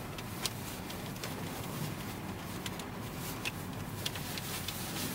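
Car driving on a snow-covered road, heard from inside the cabin: a steady low drone of engine and tyres, with a few faint clicks.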